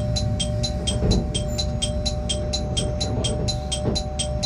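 Train running slowly with a low, steady rumble and a steady hum. Over it a rapid, even electronic ringing goes on, about six or seven pulses a second.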